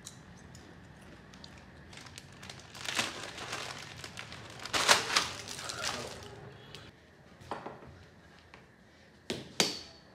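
Bag of chips crinkling in irregular bursts as it is handled and opened, loudest about five seconds in and again near the end.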